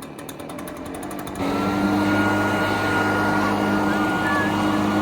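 Tractor engine running with a fast, even clatter, then throttled up about a second and a half in to a louder, steady run.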